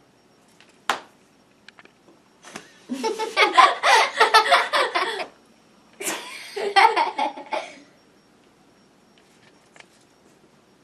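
People laughing in two bouts, the first longer and louder, after a single sharp knock about a second in.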